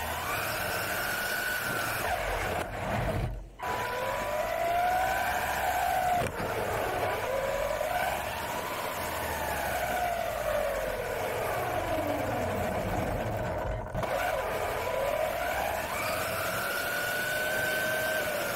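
Xinlehong RC car's electric motor whining, its pitch climbing and falling again and again as the car speeds up and slows down, over a hiss from the tyres. The sound cuts out sharply twice, about three and a half seconds in and again near fourteen seconds.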